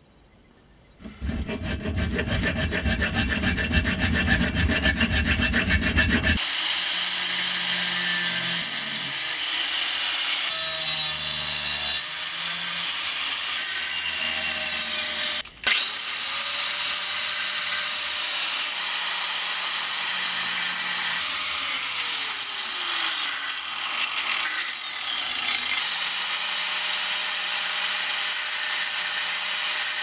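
Angle grinder grinding a small steel knife part clamped in a bench vise: a loud steady grind with a high whine. It cuts out briefly near the middle and spins back up. Before it, starting about a second in, there are a few seconds of fast rhythmic scraping on the metal.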